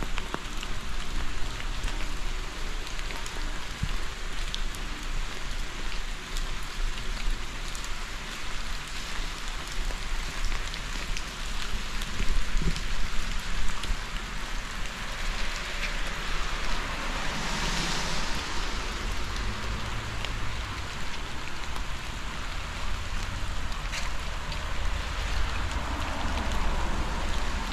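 Steady rain falling, with scattered drops ticking sharply close by. About two-thirds of the way in, a hiss swells and fades.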